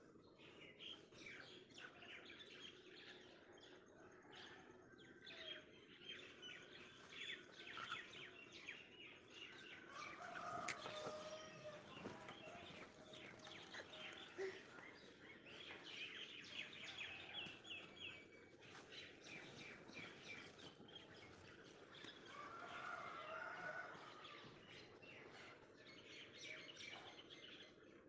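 Faint birds chirping and trilling, with a couple of lower, longer calls about ten seconds in and again near twenty-three seconds.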